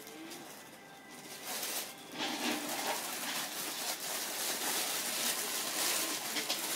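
Thin plastic shopping bag crinkling and rustling as a cat thrashes inside it and then runs with the bag over its body. The rustling grows louder about two seconds in.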